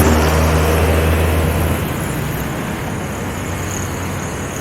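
Motor vehicle engine running with road noise, its low drone easing off and quieting after about two seconds.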